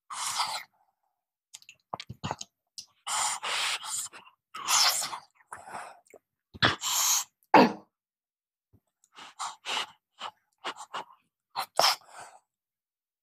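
Close-miked mouth sounds of eating a spoonful of soft khichdi: several loud noisy slurps and sharp intakes of breath, the loudest about seven seconds in, then a quicker run of short lip smacks and clicks over the last few seconds.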